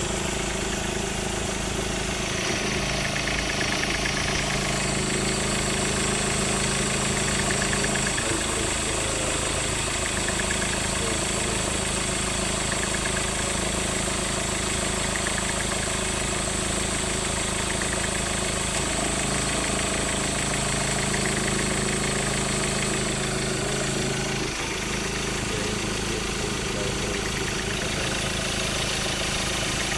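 Ford Ranger engine idling with noise from the accessory belt drive, the sign of a worn belt tensioner and alternator bearing that need replacing. A steady high-pitched whine runs through most of it and stops about 24 seconds in.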